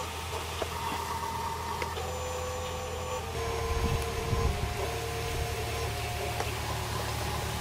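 Small electric motors of remote-controlled toy construction vehicles whining, several steady tones that change pitch about three seconds in as the motors change speed, over a low rumble with a few light clicks.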